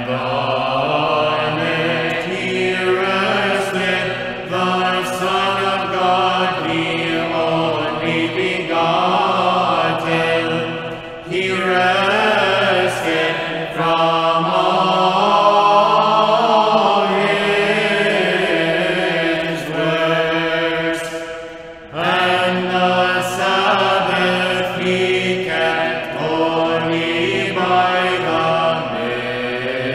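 Byzantine choir chanting an Orthodox hymn, sung in long phrases, with brief drops between phrases about eleven seconds in and again about twenty-two seconds in.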